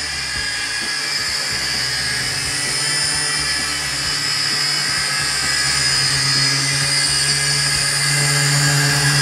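XinXun X-53F mini quadcopter's small motors and propellers whining steadily in flight. The pitch wavers slightly and the whine grows a little louder toward the end.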